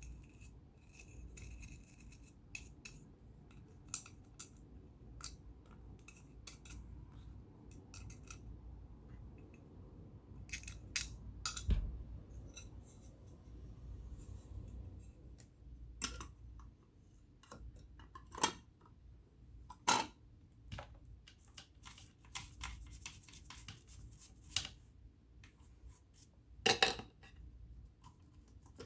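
Irregular small metallic clicks and clinks of tools and parts being handled on an all-metal vintage sewing machine during cleaning, with a few sharper knocks among them.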